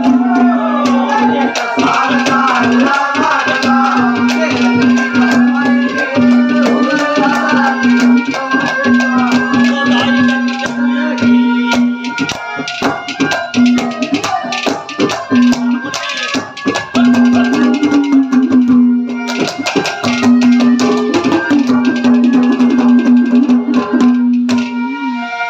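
Instrumental ragni folk music: rapid drum strokes and rattling percussion over a steady held drone note and a wavering melody line, with brief breaks in the drone partway through.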